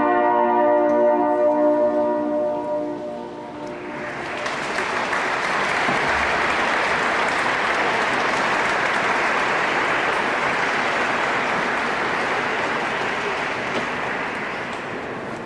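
A hunting-horn ensemble holds its final chord, which rings out and dies away after about three seconds; then the congregation applauds for about ten seconds, the clapping slowly fading near the end.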